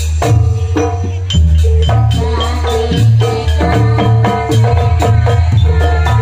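Jaranan gamelan ensemble playing a Banyuwangi-style gending: deep barrel-drum (kendang) beats under a dense, rhythmic pattern of struck kettle gongs and other metal percussion.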